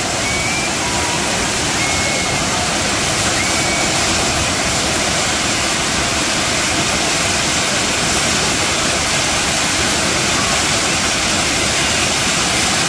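A massed fireworks fountain display, a tall kambam frame of spark fountains burning together with a loud, steady rushing hiss.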